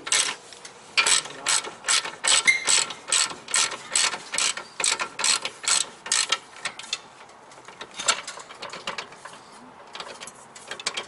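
Hand ratchet wrench clicking in a steady run of strokes, about three a second, as it loosens a rear suspension bolt. The clicking thins out about seven seconds in and picks up again near the end.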